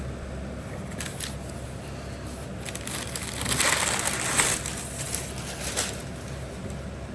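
Cardboard shipping box being opened and its packaging handled: rustling and crinkling with a few light knocks. It is loudest for about a second midway.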